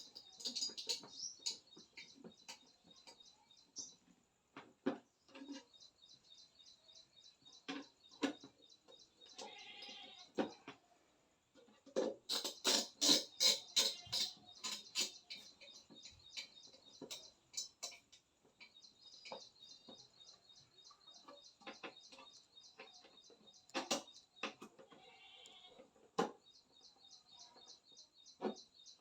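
Birds chirping in rapid high trills, with many sharp clicks and taps and a loud run of clatter about halfway through.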